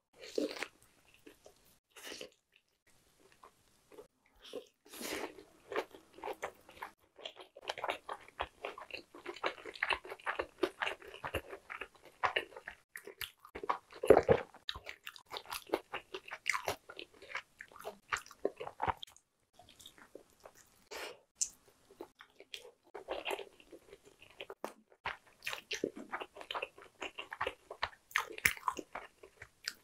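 Close-miked biting and chewing of sauce-coated fried chicken: a bite at the start, then runs of crunchy, crackling chewing with short pauses, and one sharp, loud crunch about halfway through.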